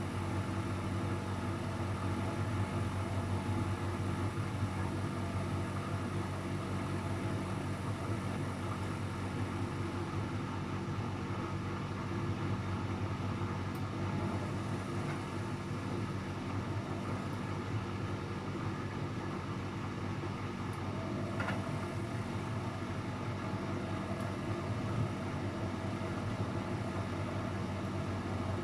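Luxor WM 1042 washing machine running with a steady, even hum. A further steady tone joins about three-quarters of the way through.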